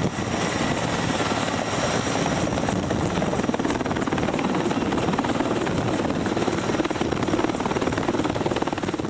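Sikorsky S-64 Skycrane heavy-lift helicopter running close by as it comes in to load fire gel: a steady, loud rotor and turbine noise with a regular rotor beat, easing off slightly near the end.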